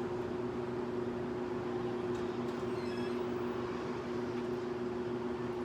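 Danby 6000 BTU window air conditioner running in cooling mode: a steady two-tone hum from the compressor under the rush of the fan.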